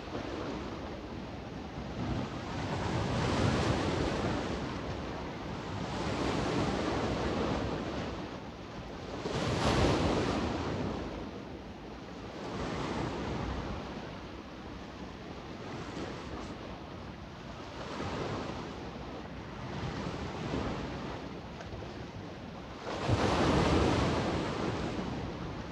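Small Adriatic sea waves washing onto the beach, swelling and receding every three to four seconds, with a louder wave breaking near the end. Wind blows across the microphone throughout.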